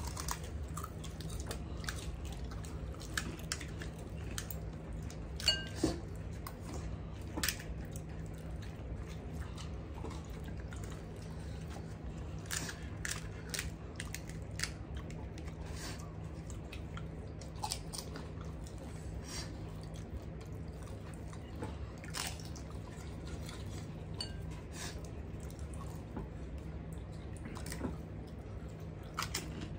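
Gol gappa (pani puri) being eaten: crisp hollow puris cracked open and bitten, with scattered short crunches and chewing at irregular moments. A steady low hum runs underneath.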